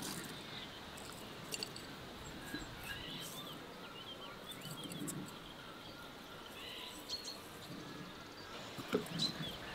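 Small birds chirping, with a few light ticks as dried flower buds are dropped into a glass teapot, the sharpest near the end.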